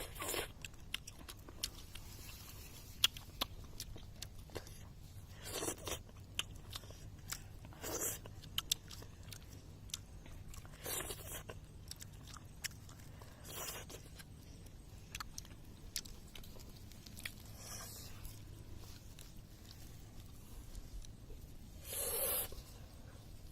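Someone eating fish: biting and chewing, with small crunches and sharp clicks and a short hushing burst every few seconds.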